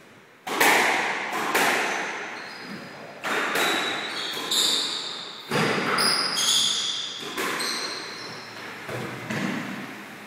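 Squash rally: about a dozen sharp cracks of the ball off rackets and court walls at an uneven pace, each echoing in the enclosed court, with short high squeaks in the middle stretch.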